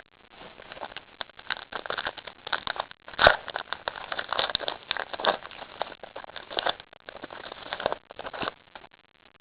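Crinkling and crackling of a 2014 Topps Heritage baseball card pack's wrapper being torn open and handled, a dense run of small crackles with one louder click about three seconds in.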